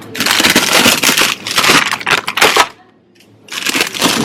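Crinkling and rustling of plastic packaging being handled, in two stretches with a short pause about three seconds in.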